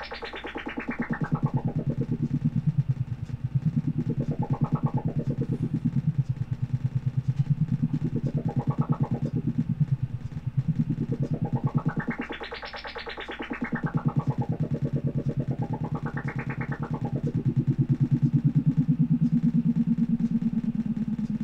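Home-built modular synthesizer playing a low, rapidly pulsing tone whose brightness sweeps up and down about four times as a knob is turned. Near the end it settles into a steadier low hum.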